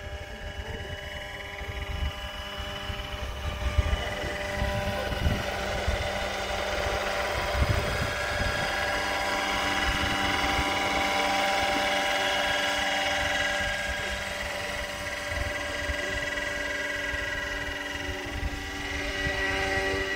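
Roban AS350 Squirrel scale RC helicopter's rotors and drive running with a steady whine of several tones over a low uneven rumble. It is loudest about halfway through as the model settles on the pad close by, then lifts off again.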